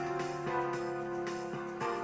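Instrumental background music: held, chord-like notes that change a couple of times.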